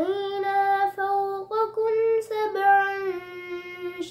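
A boy's voice reciting the Quran in Arabic as a melodic chant, in long held notes with short breaks, the pitch stepping up in the middle and settling back down.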